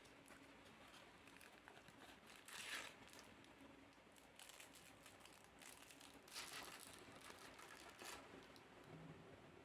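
Faint crinkling and rustling of packaging being handled during an unboxing, in several short bursts.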